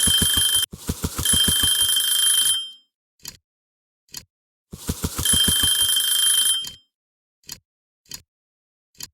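Mechanical bell alarm clock ringing, its hammer rattling rapidly against the bell in two bursts of about two to three seconds each. Between the bursts the clock ticks about once a second.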